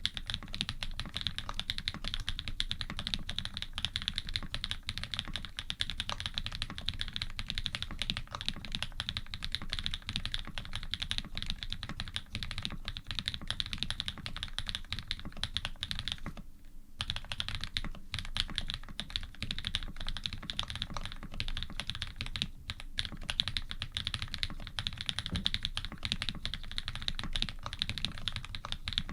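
Steady, fast typing on an Iron180 custom mechanical keyboard with lubed linear switches (Cherry housings, Cream stems, Krytox 107), a carbon plate, Cherry stabilizers and GMK keycaps. The key strikes run on densely, with a brief pause a little past halfway.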